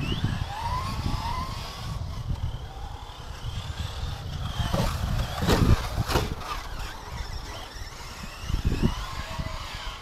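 Tekno SCT410 electric short course RC trucks driving on grass, their brushless motors whining up and down in pitch as they speed up and slow down. A low rumble of wind on the microphone runs underneath, with a few sharp knocks a little past halfway.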